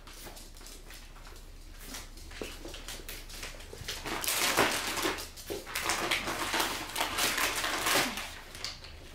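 Pet dog sniffing and whining while begging for food, louder from about halfway through.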